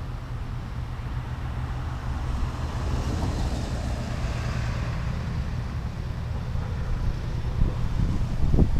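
Strong wind buffeting the microphone, a steady low rumble with gusts that grow heavier near the end. A vehicle's hiss swells and fades about three to five seconds in.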